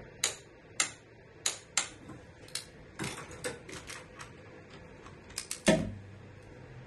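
Urceri click-type torque wrench tightening a 14 mm bolt: scattered ratchet ticks as the handle is worked back and forth, then one louder click with a thump about 5.7 seconds in, the wrench releasing at its set torque of 33 lb-ft.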